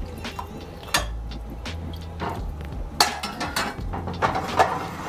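A wooden spoon stirring coconut curry in a stainless-steel sauté pan, scraping and knocking against the pan a few times, over background music.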